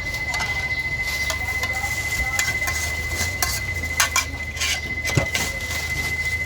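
Metal utensils and bowls clinking and knocking several times, the sharpest strikes about four and five seconds in, over a steady low hum. A steady thin high-pitched tone runs underneath throughout.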